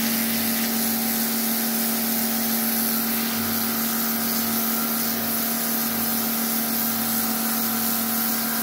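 Ryobi AJP1610 1,800 W electric pressure washer running steadily: a constant motor-and-pump hum under the hiss of its rotating tornado nozzle jet blasting water onto concrete paving to strip off algae.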